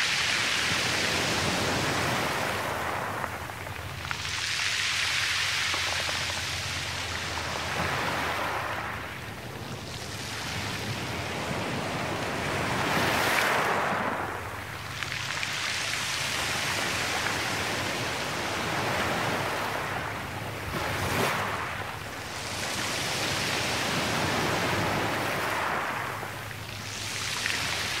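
Sea surf washing in on the shore in slow swells, each wave rising and falling over a few seconds, with a couple of sharper splashes midway.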